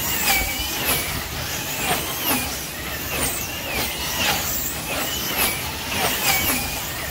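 Wing-class slot cars racing, their small electric motors whining as they pass in a steady stream. The pitch glides up and down with each car going by, about one to two passes a second.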